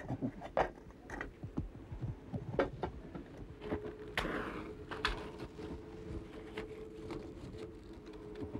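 Pots and lids being handled at a kitchen hearth: scattered clinks and knocks. A steady low hum sets in about three and a half seconds in.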